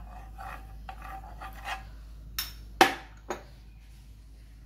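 A steel spoon scraping across a nonstick frying pan in short repeated strokes, spreading butter. Then three sharp metal clinks, the middle one loudest, as the spoon is put down in a bowl.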